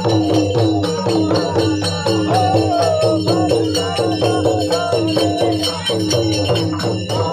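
Several double-headed barrel hand drums beaten together in a fast, steady rhythm, each stroke ringing with a short bend in pitch, over a steady metallic jingle.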